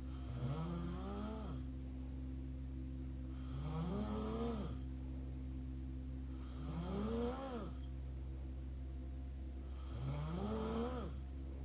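Mouth snoring: four tonal snores about three seconds apart, each rising and then falling in pitch, over a steady low hum.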